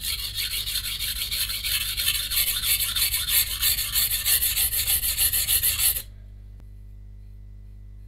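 VG10 santoku blade ground back and forth on a 180-grit coarse whetstone in quick, even strokes, re-setting the edge and raising a burr. The strokes stop abruptly about six seconds in, leaving a low steady hum.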